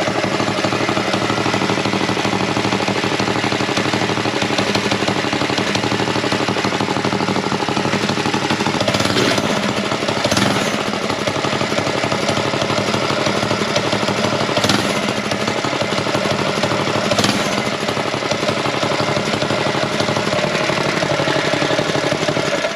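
Hot-rodded Predator 212 single-cylinder engine with a header exhaust, aftermarket cam and forged rod, running steadily on a Rascal mini bike just after a pull start with the choke off. It gets briefly louder a few times.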